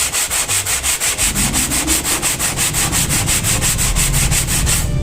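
A brake pad's friction face being rubbed back and forth on sandpaper by hand: a fast, even run of scratchy strokes. The pad is being sanded flat until its contact surface is even, a fix for squealing brakes.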